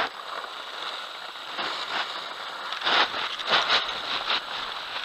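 A skier's fall heard from a helmet camera: skis and body sliding and scraping over hard snow, a steady gritty hiss. It is broken by several louder scrapes and knocks about three to four seconds in.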